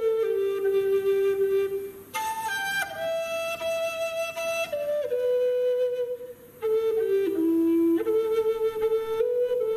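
A flute playing a slow air as a single melodic line, each note held for about a second, with two short breaks between phrases.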